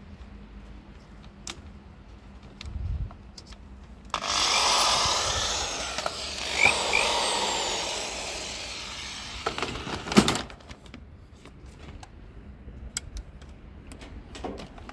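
A green Bosch power tool switched on and run for about five seconds, a loud whirring hiss that fades before it stops. A sharp knock follows, and small handling clicks come before and after.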